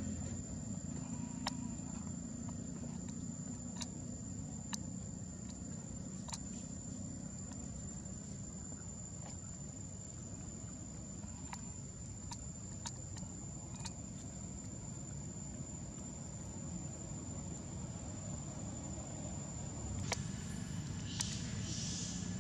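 Outdoor ambience: a steady high-pitched insect drone over a low rumble, with scattered sharp clicks and a brief higher chirp near the end.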